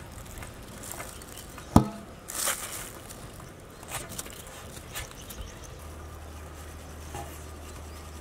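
Scattered light clicks and knocks over a steady low hum, with one sharp knock about two seconds in and a brief rustle just after it.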